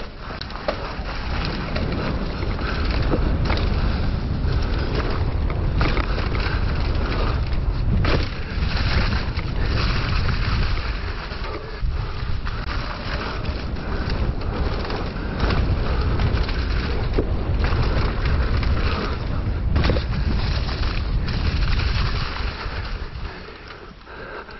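Mountain bike ridden fast down a leaf-covered dirt trail: wind rushing over the microphone and tyres rolling over leaves and dirt, with sharp knocks from the bike over bumps, clearest about eight seconds in and again near twenty seconds.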